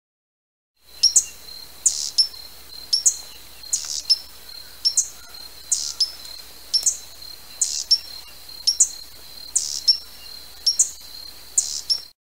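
Hummingbird giving sharp, high chip calls, about one a second, over a thin steady high tone. The calls begin about a second in.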